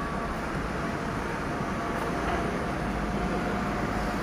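Steady street traffic noise as cars and a van pass on the road below.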